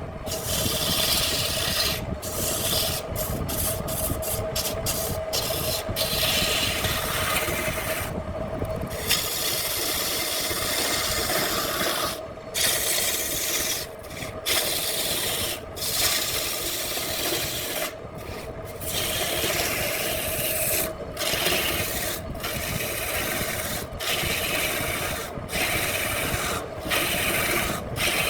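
Wood rasping against a tool or abrasive on a spinning wood lathe, broken every second or two by brief gaps as it lifts off the work.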